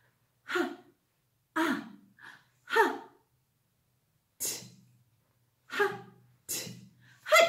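A woman's voice sounding out isolated phonics sounds one at a time, about eight short breathy 'h' and clipped 't' sounds with pauses between, blending the letters of the word 'hut'.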